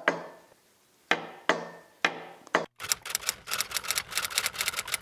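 The crankshaft of a Citroën U23 truck engine is pushed end to end in its freshly torqued main bearings, clunking metal on metal four times about half a second apart at each end of its travel. The clunks show excess lateral (end) play that still has to be shimmed out. From about three seconds in, a fast run of typewriter-like clicks plays instead.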